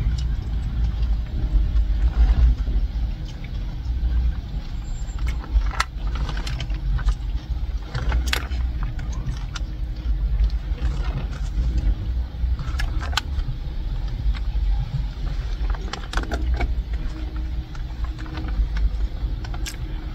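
Steady low rumble inside a car, with scattered short clicks and taps of a plastic fork against a foam takeout container during eating.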